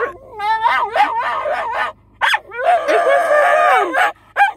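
Patterdale terrier puppy 'singing': whining and yowling in pitched, gliding calls. A run of short rising-and-falling yelps is followed about two-thirds in by one long wavering howl, excitement at the prospect of her walk.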